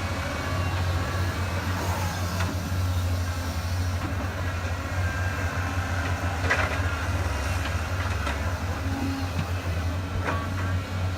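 Heavy diesel engine of an excavator running steadily with a low rumble, with a couple of sharp clanks over it.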